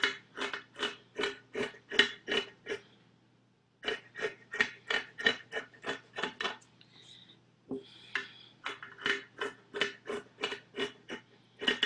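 Scissors snipping through t-shirt fabric in quick repeated strokes, about three a second, cutting a strip across the shirt. There are three runs of snips, each broken by a pause of about a second.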